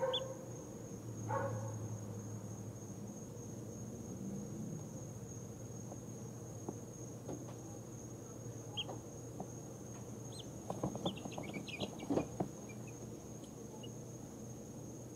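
Two-week-old chicks falling asleep, giving a few soft, short peeps and trills now and then, with a small cluster of peeps and light rustling around eleven to twelve seconds in. Under them run a steady high-pitched whine and a low hum.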